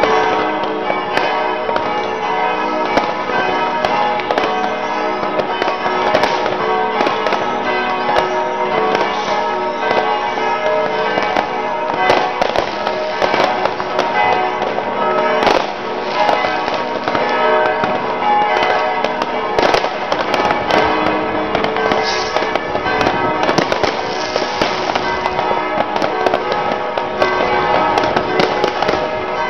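Church bells ringing continuously while New Year's fireworks and firecrackers bang and crackle throughout, with one especially loud bang about halfway through.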